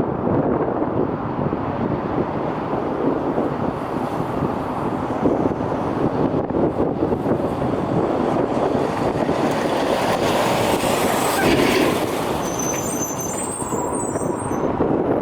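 Steady rushing noise of wind and vehicle engines. It swells about ten to twelve seconds in, and faint high whistling tones come near the end.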